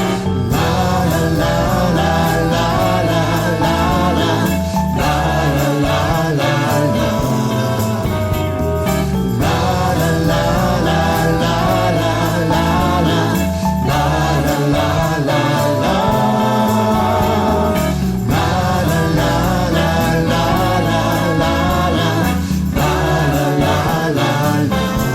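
Gospel song playing, in an instrumental stretch between sung verses, with a steady beat and phrases that repeat about every four and a half seconds.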